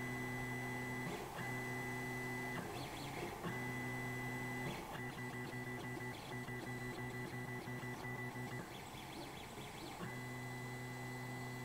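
Creality Ender 3 3D printer's stepper motors running as its pen attachment draws on paper. A steady hum at several pitches stops and restarts every second or so as the head changes from one stroke to the next, with brief ticking in the gaps.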